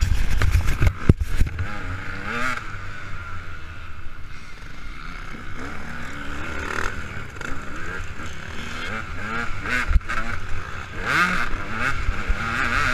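KTM 200 EXC two-stroke single-cylinder engine revving up and down under riding, with heavy wind rumble on a helmet-mounted camera. Several sharp knocks in the first second or so and another near ten seconds.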